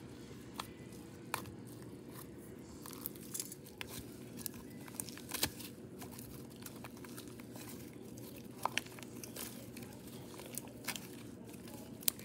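Homemade slime being squeezed and stretched by hand, giving scattered small crackles and pops.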